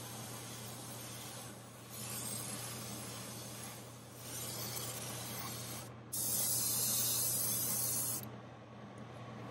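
Airbrush spraying pearl copper paint in four hissing bursts of about two seconds each, as the trigger is pressed and let go. The fourth burst, about six seconds in, is the loudest and stops sharply. A steady low hum runs underneath.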